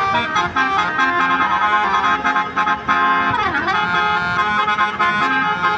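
Basuri telolet bus horn playing a quick melody of bright, organ-like notes, with a swoop down in pitch and back up about halfway through.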